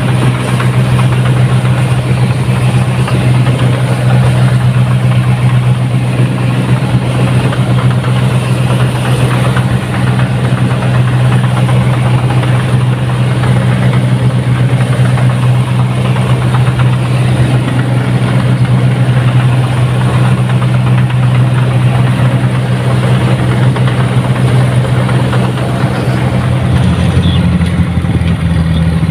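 Rice combine harvester's diesel engine running at a steady speed as the machine travels along the road: a constant low drone. Near the end the drone changes pitch.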